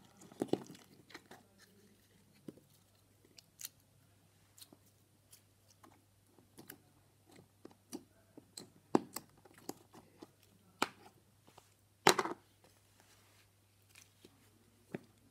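Clear plastic slime tubs being handled, picked up and set down: scattered clicks, taps and crinkles, with a louder cluster about twelve seconds in.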